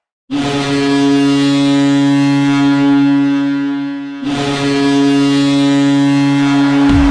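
Boston Bruins goal horn blowing two long blasts at one steady low pitch, the first about four seconds long and the second about three, with only a brief dip between them.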